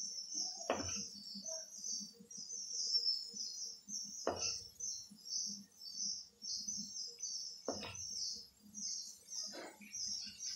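A plastic spoon knocks four times against a steel idli mould plate, a few seconds apart, as batter is ladled into the cups. Steady high-pitched chirping runs underneath throughout.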